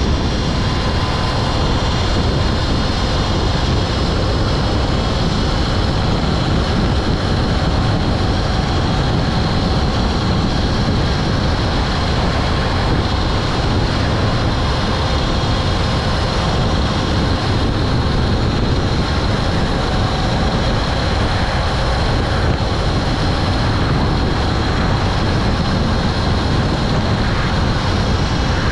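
DIY electric motorcycle riding at a steady speed: a high, steady whine from the electric drive over a heavy rush of wind and road noise.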